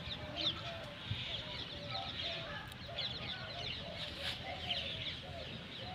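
A chorus of birds chirping continuously, many quick high chirps, with a few lower, shorter calls mixed in.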